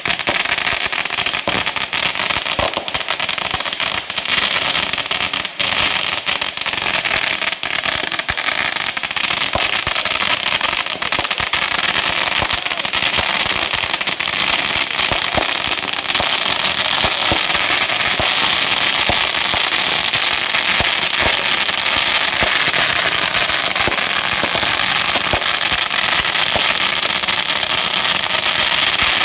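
Fireworks crackling: a dense, continuous stream of rapid small pops with a hiss, holding steady and growing a little fuller partway through.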